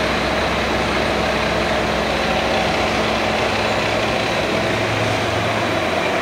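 CNC machine-shop machinery running: a steady mechanical drone with a few held tones over it, and a low hum that joins about four seconds in.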